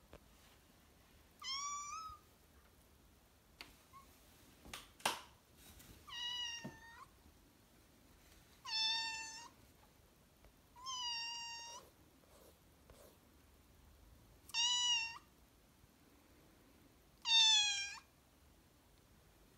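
Siamese kitten meowing six times: high-pitched calls about a second long, a few seconds apart, each dropping in pitch. A few faint taps fall between them, with a sharper knock about five seconds in.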